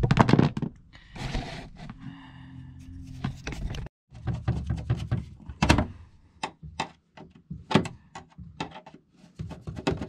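Irregular clicks and knocks of a screwdriver working screws and parts in an RV's metal power-distribution panel, with a short low hum about two seconds in.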